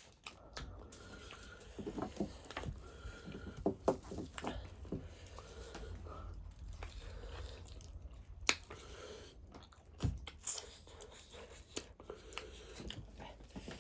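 Chewing and biting pork feet, with irregular sharp clicks and smacks; the sharpest come about four and eight and a half seconds in.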